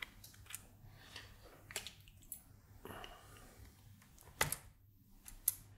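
Small plastic 6 mm spacers clicking and tapping as fingers pick them up off a cutting mat: scattered light clicks with a brief rustle near three seconds, the sharpest click about four and a half seconds in.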